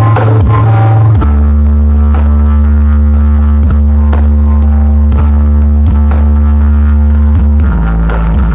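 Large sound-system rig playing loud music. A deep, steady bass drone holds one note, shifts to another about a second in and again near the end, under light percussion ticks.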